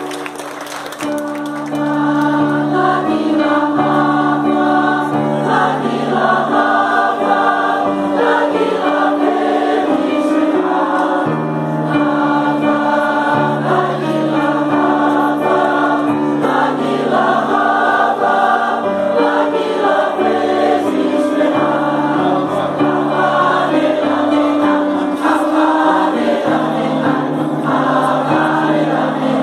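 A large choir singing in harmony, holding sustained chords, growing louder about two seconds in.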